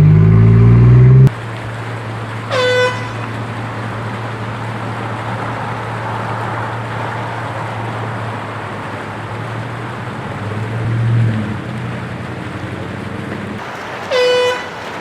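Two short blasts of a handheld canister air horn, each with a quick upward swoop at the start, one about two seconds in and one near the end. A steady low hum runs underneath. A louder low-pitched blare at the start cuts off suddenly about a second in.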